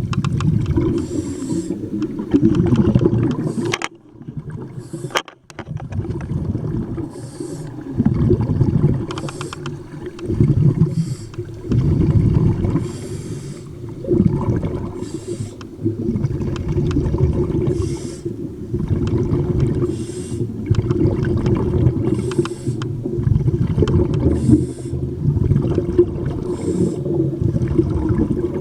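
Muffled underwater sound, heard through a camera housing: a diver's or swimmer's breathing and bubbles. A hiss comes about every two seconds over a constant low rumble of water, with a short quieter spell about four seconds in.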